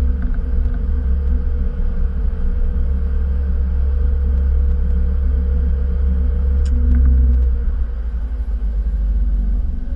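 Cockpit noise of a Cessna Citation CJ4 moving slowly on the ground: a steady low rumble with a constant hum from its Williams FJ44 turbofans. A few faint clicks come about seven seconds in.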